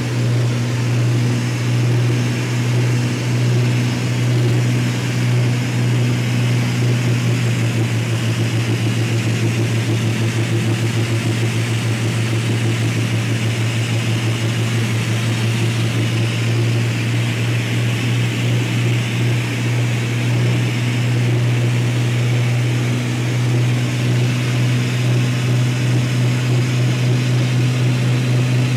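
Beechcraft Baron's twin piston engines and propellers droning steadily on a landing approach, heard inside the cabin: a strong low hum under a rushing noise, wavering slightly in level.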